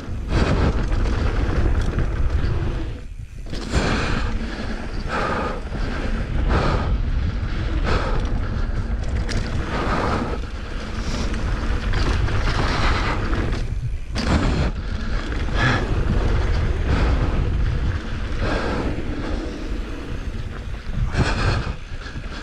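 Mountain bike riding fast down a rocky dirt trail: a steady rumble of wind on the microphone, with the tyres crunching over dirt and rocks and the bike clattering irregularly over bumps.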